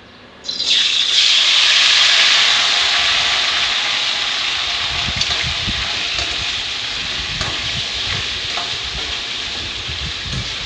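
Par-boiled chicken pieces tipped into hot oil in a kadai start a loud sizzle about half a second in, which slowly dies down; the water still in the chicken sets the oil spitting. From about halfway on, a steel ladle stirs and scrapes the pieces in the pan.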